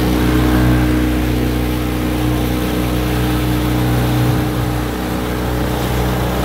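A 10 hp outboard motor running steadily at speed on a small boat, with water rushing past the hull.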